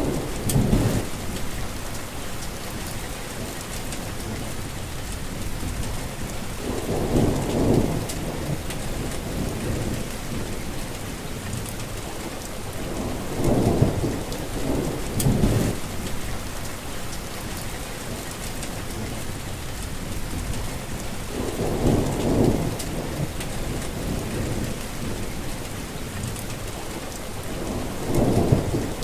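Steady rain falling, with a fine patter of drops. Six low rolls of thunder rumble through it, each a second or two long, spaced every six to eight seconds.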